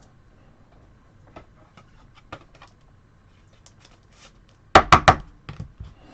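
Trading cards and packs being handled on a table. Light scattered clicks and taps, then three sharp knocks in quick succession about five seconds in, followed by a few softer ones.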